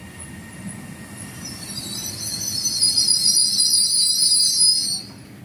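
A passenger train rolling past the platform with a low rumble from its wheels. A high-pitched brake and wheel squeal builds from about a second and a half in, stays loud, then cuts off suddenly near the end.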